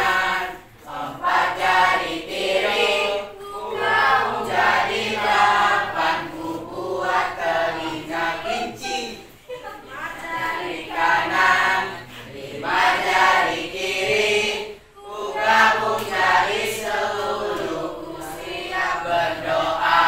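A classroom of teenage students singing a song together in unison, in phrases of a few seconds with short breaks between them.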